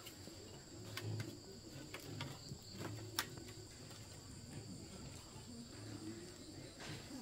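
Steady high-pitched insect chorus of crickets or cicadas, with a few sharp clicks and knocks scattered through it, the sharpest about three seconds in.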